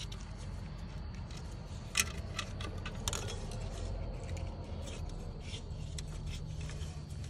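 Hands handling the wiring harness and electrical connectors around a car alternator. Small plastic and metal clicks and rattles, with a sharp click about two seconds in and another about a second later, over a steady low rumble.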